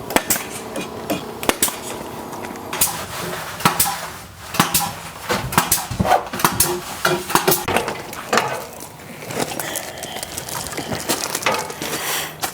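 Irregular sharp knocks and clanks, several a second at times, over a faint steady low hum.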